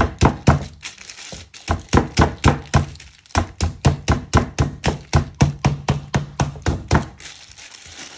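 Metal-headed meat mallet pounding a chicken breast through a plastic food bag on a wooden chopping board to flatten it: rapid thuds, about four a second with two short pauses, stopping about seven seconds in. After the pounding stops, the plastic bag crinkles faintly.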